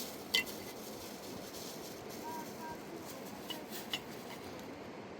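Steady background rush with a few sharp clicks or knocks, the loudest about half a second in and two smaller ones near the end.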